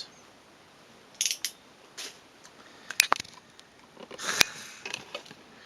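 Handling of a model-kit box and its packaging: scattered sharp clicks and brief crinkling rustles, the sharpest clicks about three seconds in and a longer rustle about four seconds in.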